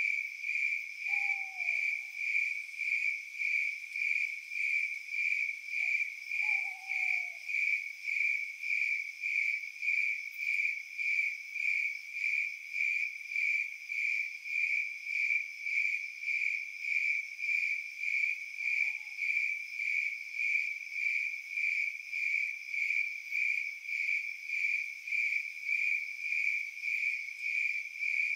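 Night ambience of crickets chirping in a steady, evenly pulsing rhythm, with a lower, short falling call heard three times.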